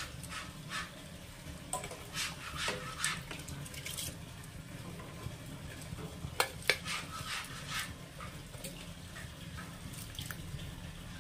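Kitchen sounds around a steel pot of water heating on a gas stove: a steady low hum, with scattered clinks and knocks of metal utensils, two sharper ones about six and a half seconds in. Near the end, dry rice is poured into the water.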